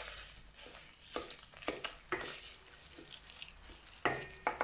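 Pepper paste frying in olive oil in a stainless steel pot, sizzling while a wooden spoon stirs it. The spoon scrapes and knocks against the pot several times, loudest near the end.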